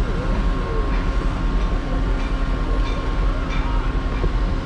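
Steady low machinery rumble with a faint steady hum over it and a few faint clicks.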